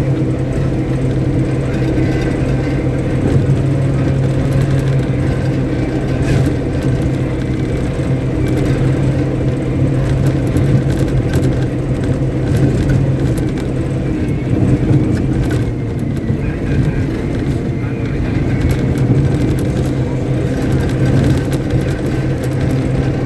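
Caterpillar 777D haul truck's diesel engine running steadily at a constant speed, a loud even drone with no rise or fall in pitch.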